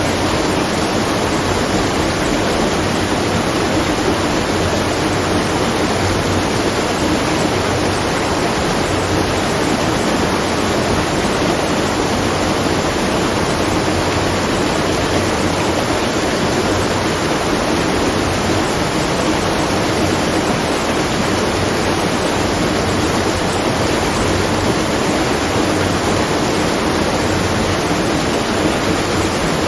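Water rushing steadily at a watermill, an even, unbroken noise.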